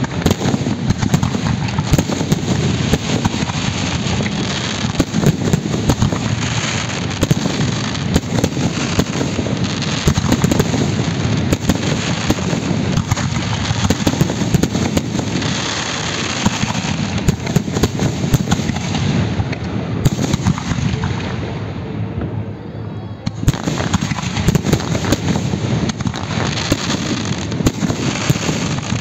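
Fireworks display: aerial shells bursting in a dense, continuous barrage of bangs and crackling, easing briefly about three-quarters of the way through before picking up again.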